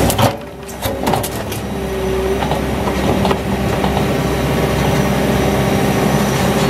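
Takeuchi TL120 compact track loader's diesel engine running steadily. In the first second or so, sharp knocks and clatter come as junk tumbles from its bucket into a steel dumpster.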